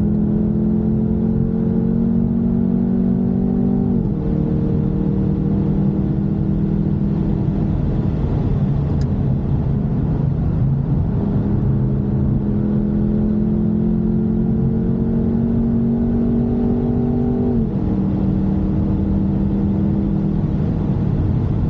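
Jaguar F-Type P300's turbocharged four-cylinder engine pulling hard, its note climbing slowly and then dropping sharply with an upshift about four seconds in. For a few seconds midway the engine note gives way to road and tyre noise, then it climbs again to a second upshift near the end.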